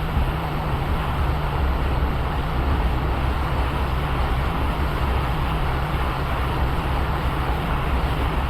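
Steady rush of air and fan hum from a hot air rework station blowing on a circuit board to reflow the solder under a replacement LCD connector.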